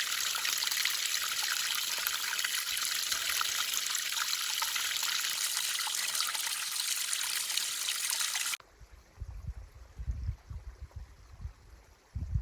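Flowing stream water, a loud steady hiss that cuts off abruptly about two-thirds of the way in. Afterwards there are only quieter, irregular low rumbles, with one louder one near the end.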